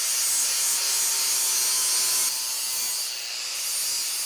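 DeWalt grinder grinding down the steel of an old bench vise to clear off worn jaw seats and weld: a steady, loud hiss of abrasive on metal over a faint motor whine, easing slightly about two seconds in.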